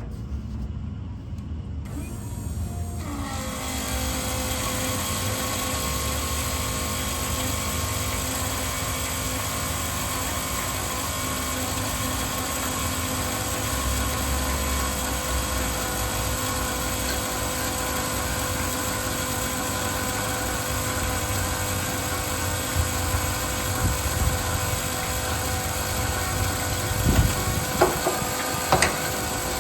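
A low, pulsing rumble, over which a motor starts about three seconds in and runs steadily with a whine. A few sharp knocks come near the end.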